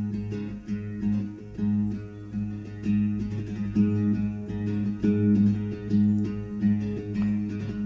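Acoustic guitar played with the fretting hand alone in the Tatap technique: fingers strike the strings against the fretboard, sounding a bass note and chord tones together with sharp percussive taps in a steady rhythm.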